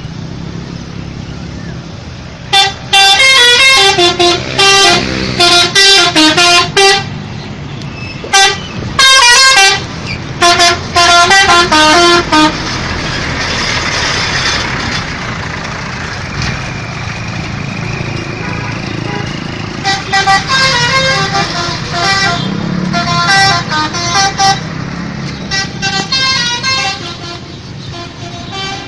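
Indonesian bus 'telolet' horn, a multi-tone musical horn, playing its quick stepping melody in loud repeated bursts, then again more faintly about twenty seconds in, over street noise.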